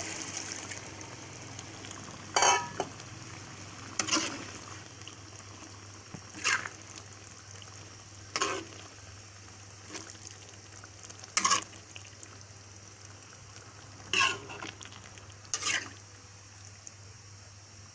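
Coconut milk pouring into a hot wok of beef rendang, its hiss fading within about a second, then a metal spatula stirring and scraping the wok about every two seconds over a low steady sizzle.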